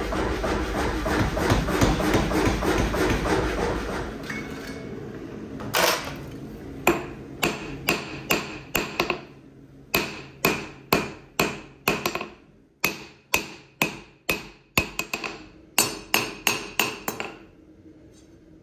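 A power hammer pounds a knife blank in a rapid, continuous run of blows for about the first four seconds. From about six seconds in, a hand hammer strikes the red-hot blade on an anvil, about two ringing blows a second, stopping a second or so before the end.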